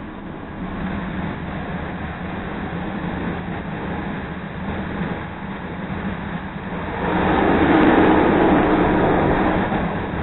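CTA Red Line rapid-transit train running along the track, heard from inside the car: a steady rumble and rail noise that grows clearly louder about seven seconds in and eases off near the end.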